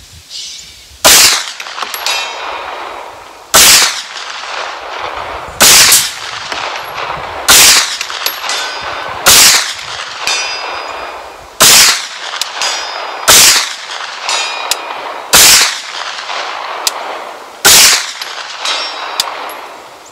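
Foxtrot Mike 9mm carbine with a 16-inch barrel firing single aimed shots, nine in all, roughly every two seconds. After each shot comes the faint high ring of the steel target being hit.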